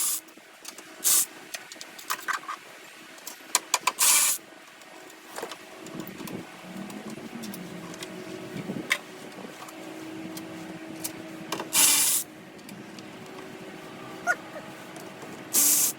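Socket ratchet wrench spun in short quick bursts with scattered clicks between, loosening 10 mm bolts to get the engine cover and battery off. A faint steady hum runs underneath from about six seconds in.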